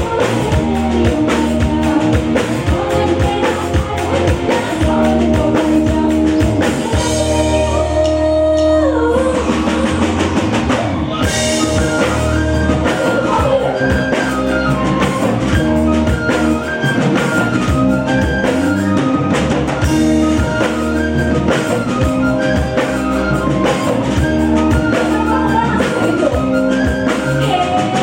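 Live band music with a woman singing over a drum kit keeping a steady beat.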